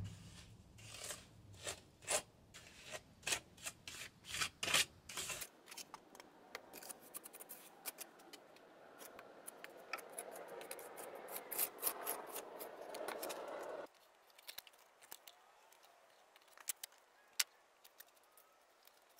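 Steel trowel scraping and clicking against wet cement mortar and wood as mortar is spread and smoothed: a run of short scrapes and taps, with a longer stretch of steady spreading in the middle.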